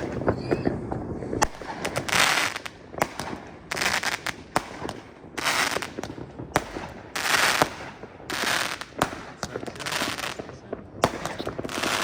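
New Year's Eve fireworks going off: a run of sharp bangs, with short hissing bursts about half a second long every second or so.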